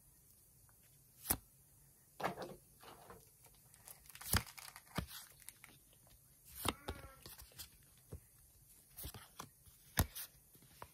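Pokémon trading cards and their foil booster wrapper being handled: several sharp card snaps and clicks with softer paper and foil rustling between them.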